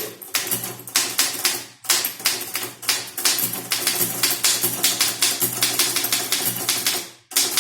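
Typewriter keys striking in rapid succession during fast typing, breaking off briefly twice.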